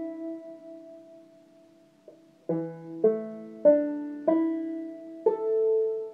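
Five-string banjo, capoed at the second fret in sawmill tuning, its strings plucked one at a time to sound the new tuning. Five single notes, the last left ringing.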